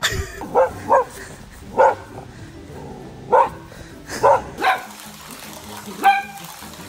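A dog barking: about six short, sharp barks in uneven bursts over several seconds.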